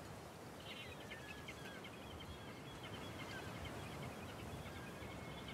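Small birds twittering in a long run of quick, high chirps that starts about a second in, faint over a low, steady outdoor background rumble.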